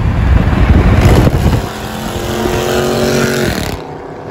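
Cars running at highway speed, with heavy wind rumble on the microphone from a moving car. About halfway through, a steady pitched engine drone takes over.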